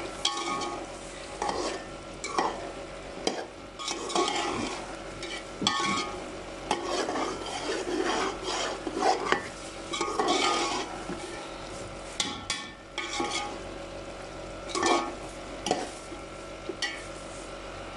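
A metal spoon stirring and scraping cubed potatoes and green peas as they fry in oil in a large metal pot, in irregular strokes over a steady sizzle.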